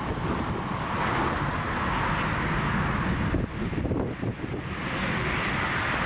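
Strong gusty wind buffeting the microphone, over the distant steady roar of an airliner's jet engines on its takeoff roll. The wind drops briefly a little past halfway.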